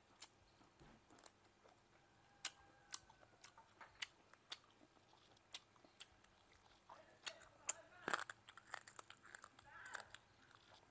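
Close-miked eating of grilled frog: quiet wet chewing and biting, with scattered sharp crunches and mouth clicks as meat is pulled off the small bones. The clicks come more thickly about seven seconds in.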